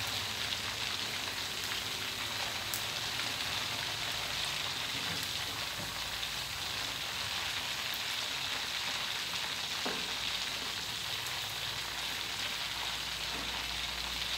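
Chicken frames deep-frying in hot oil in a steel wok: a steady sizzle with a few scattered pops.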